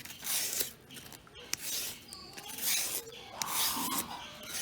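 A raw green banana (plantain) being peeled, its tough skin scraped off in about four scraping strokes roughly a second apart.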